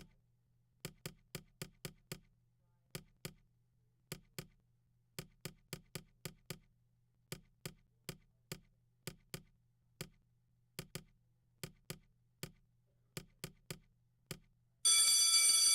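A pen tapping on a desk: sharp single taps in an uneven rhythm, about two to three a second. Near the end a loud ringing tone cuts in suddenly and fades slowly.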